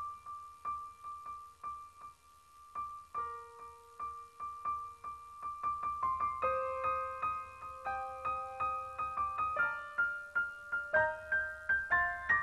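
Slow piano music: one high note repeated about three times a second, with lower notes and a fuller, louder melody coming in about halfway through.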